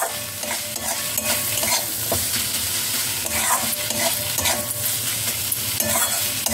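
Metal spatula (khunti) stirring and scraping crumbled chicken and capsicum around a metal kadai, the strokes clattering against the pan with brief metallic rings, over a steady sizzle of frying.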